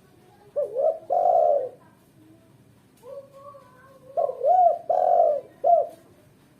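Female spotted dove cooing in two bouts, the second longer, each made of short arched coos and a longer drawn-out coo. It is the female's call to a male.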